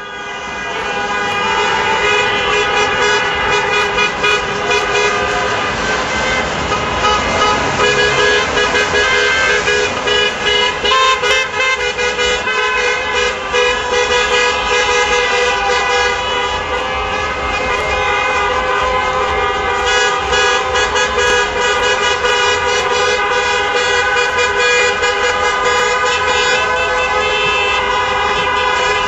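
Many car horns honking at once, long and overlapping without a break over loud street traffic, the honking of a street celebration.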